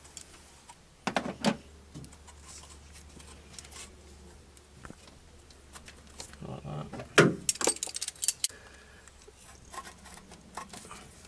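Metal clicks and clatter from pliers and a hose clip as a rubber hose is worked onto its fitting: a couple of clicks about a second in, then a busy run of jangling clicks in the middle, the loudest about seven seconds in.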